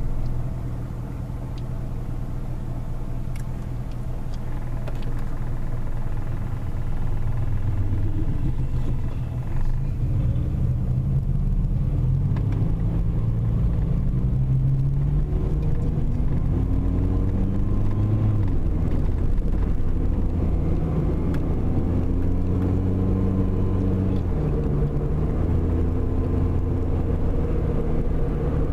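Car engine and road noise heard from inside the cabin, first at a low steady idle, then pulling away. The engine's pitch climbs and drops back several times as the car gets up to speed.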